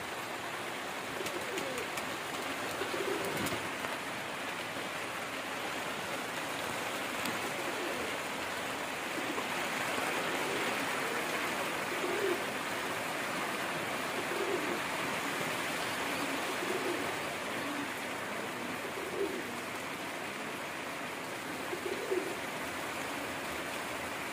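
Frillback pigeons cooing: short, low coos repeated every two to three seconds over a steady hiss.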